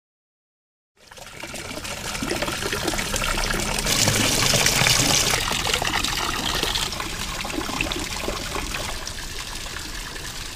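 Water trickling and splashing from a small rock waterfall into a garden fish pond. It fades in after about a second of silence and is loudest about four to six seconds in.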